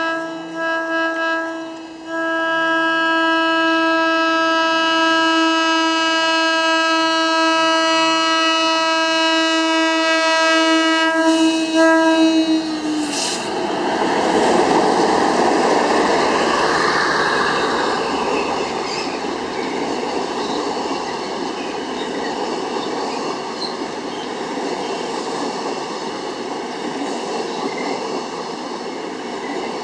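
A diesel locomotive's horn sounds two short breaks in, then holds one long blast for about ten seconds. Its pitch dips slightly as the locomotive passes and the horn cuts off. Then the locomotive and a long rake of passenger coaches rumble past with wheels clattering on the rails, loudest a few seconds after the horn stops and slowly fading.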